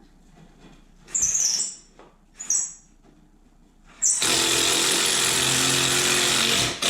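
Small cordless impact driver driving screws into wood. It gives two short trigger blips, then runs steadily for about two and a half seconds and stops.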